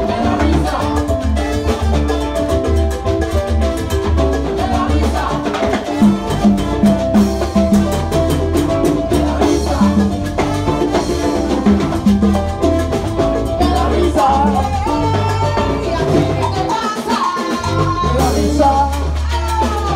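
Live Cuban salsa band playing: congas and other percussion over a steady bass line, with melodic lines above. The bass drops out for about a second near the end, then returns.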